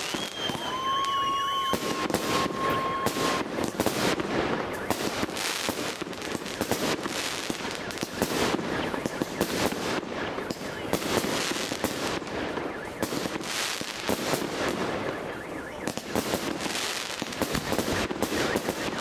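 Fireworks display: a dense, unbroken run of aerial shell bursts and crackling stars going off in quick succession. A steady high tone sounds through the first few seconds.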